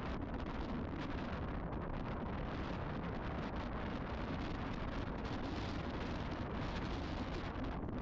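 Strong wind blowing over the microphone: a steady noise with no break.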